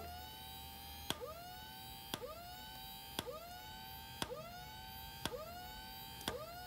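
Whelen A413 HD-14 aircraft strobe power supply firing its strobe lamp about once a second: each flash is a sharp click, followed by a whine that rises in pitch and levels off as the supply recharges for the next flash. Seven flashes in all, evenly spaced.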